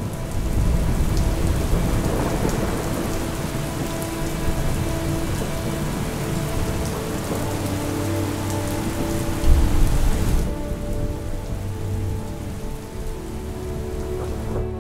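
Heavy rain pouring steadily, with low rumbling thunder that swells about nine and a half seconds in. Soft sustained music notes sound beneath, and the rain's hiss falls away about ten seconds in.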